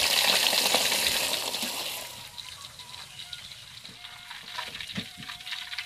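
Pieces of boiled chicken frying in a pan: a loud sizzle that dies down about two seconds in to a quieter sizzle with scattered crackles.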